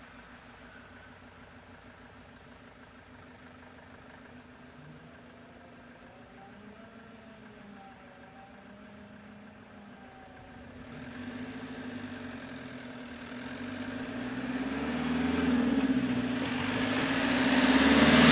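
A Renault Trafic van's engine approaching and passing close. It is faint at first, then grows steadily louder from about ten seconds in, loudest at the very end as it goes by.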